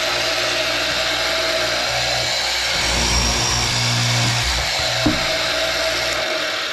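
Tooltech Industry PB 13 multi-spindle line boring machine running, its row of boring bits spinning. A deeper sound comes in from a couple of seconds in as the bits bore shelf pin holes into the panel, and there is a knock about five seconds in. The motor winds down near the end.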